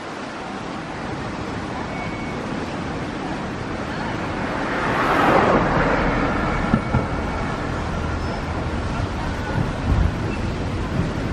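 Road traffic at a city intersection: cars driving through, one passing close and loudest about five seconds in, with low thumps of wind buffeting the microphone.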